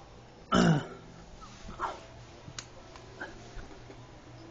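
A dog gives one short whining bark about half a second in, then two fainter, shorter cries.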